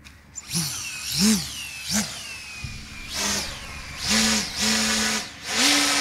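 Electric motor and propeller of an Explorer BF F5J electric glider run in short bursts, each with a rushing whoosh of the propeller: three quick blips that rise and fall in pitch, then three longer half-second pulses held at a steady pitch, the last a little higher.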